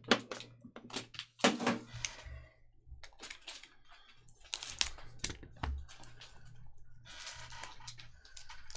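Sealed cardboard trading-card box being handled and its shrink-wrap slit with a plastic box cutter, making scattered clicks and light knocks. Near the end comes the crinkle of the plastic film as it starts to come off.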